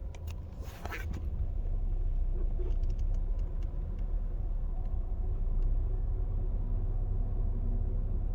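Low, steady rumble in the cabin of a 2022 Volkswagen Polo with a 1.4-litre engine and 7-speed DSG, held in Drive in stop-and-go traffic. It grows louder about a second and a half in and then holds steady.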